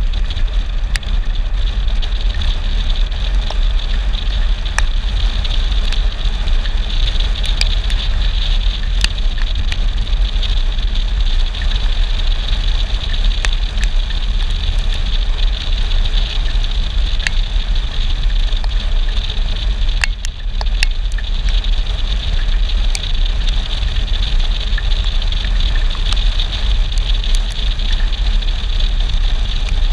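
Riding noise from a Yamaha Xmax 300 scooter on a rain-wet street: a steady rush of wind and tyre noise on the microphone with a low rumble, and scattered sharp ticks throughout. It eases briefly about two-thirds of the way through.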